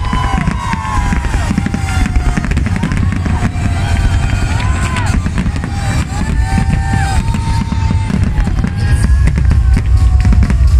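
Fireworks display: aerial shells bursting in a dense, rapid string of bangs and crackle, with music playing alongside. The bursts get louder near the end.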